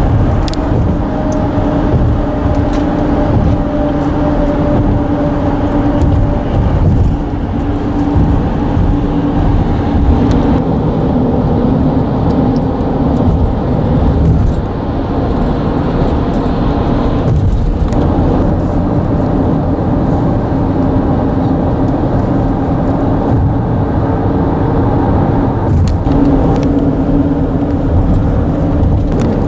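Road traffic on a bridge: a steady low rumble with a droning hum from tyres on the bridge deck, swelling and easing slightly.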